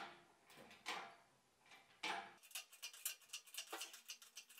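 Faint knocks about once a second, then quicker faint clicking, from a hydraulic engine crane being worked as it lifts a heavy metal bandsaw.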